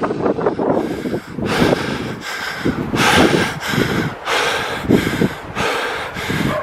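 A person running hard through scrub: heavy breathing and footfalls coming in a steady rhythm about twice a second, with brush rustling against them.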